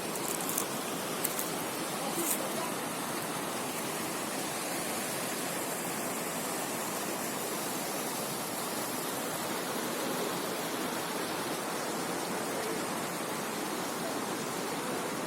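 Waterfall: a steady rush of falling water, with a few brief clicks in the first couple of seconds.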